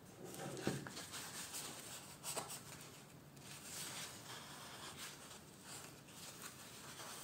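Sheets of parchment handled and folded by hand: soft rustling and rubbing with little crackles, and sharper crackles about a second in and again at about two and a half seconds.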